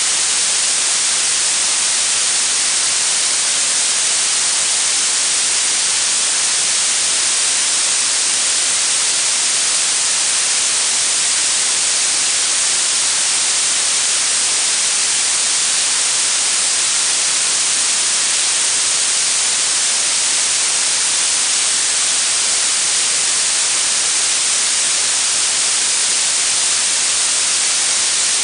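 Steady blue noise: an even, unbroken synthetic hiss weighted toward the high end, brightest in the treble and thin in the bass.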